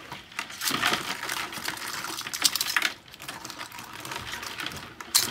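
Metal tongs rattling and scraping among a bucketful of live blue claw crabs in a plastic bucket, the crab shells clicking and clattering together. The clatter is busiest from about one to three seconds in, with another sharp clatter near the end.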